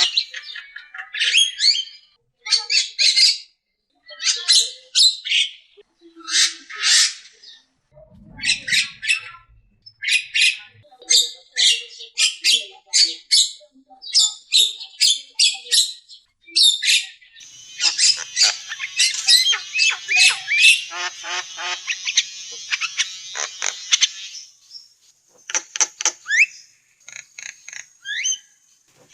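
Starlings (jalak) calling: short harsh squawks and whistles, roughly one a second, breaking into a dense run of rapid chatter for several seconds past the middle.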